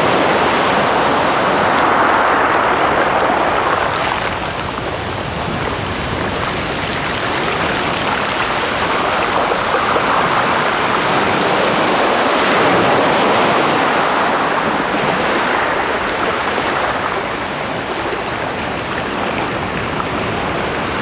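Sea surf: waves washing onto a shore, the rush swelling and falling back every few seconds.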